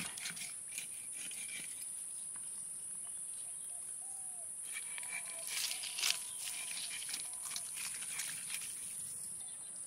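Insects droning at a high, steady pitch, with a few faint clicks and faint distant calls about halfway through.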